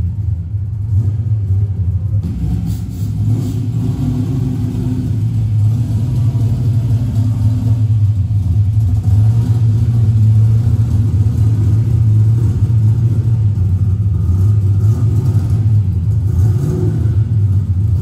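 Fox-body Mustang drag car's engine rumbling steadily, heard from drag-race footage playing on a TV.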